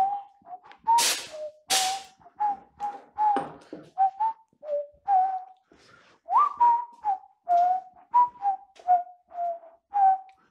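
A person whistling a catchy tune, a run of short notes rising and falling, with short scraping strokes of a blade on the painted cast-iron vise jaw between the notes; the two loudest strokes come about a second in.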